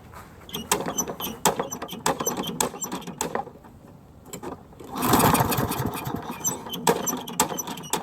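Recoil starter of a Toro gas lawn mower being pulled again and again, the engine turning over in quick rattling strokes but never firing, because the spark plug has been left out. The pulls come in a run early on, then a louder rougher burst of cranking about five seconds in.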